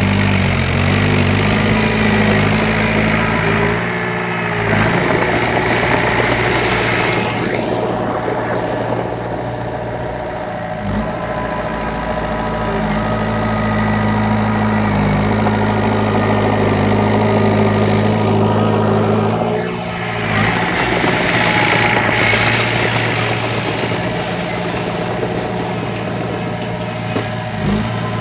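Heavy diesel engine of earthmoving equipment running continuously, its low drone shifting in pitch and strength several times as the load changes, with a dense rattling, hissing layer above it.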